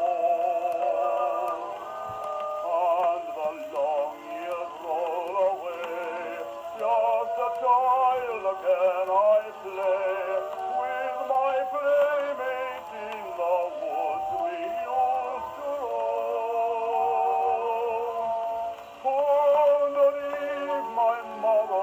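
A 1914 acoustic shellac record of a male singer, played on a Perophone Portable gramophone through a Micro-Perophone reproducer with a soft steel needle. The voice sings a sustained, wavering vibrato melody, thin in tone with little bass.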